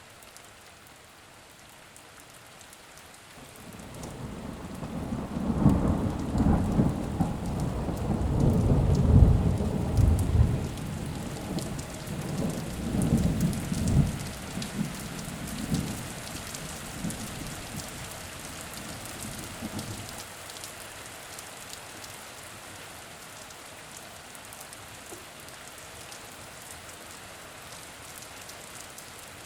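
Thunderstorm: steady rain hissing throughout, with a long rolling rumble of thunder that builds from about three seconds in, is loudest near the ten-second mark and dies away by about twenty seconds, leaving rain alone.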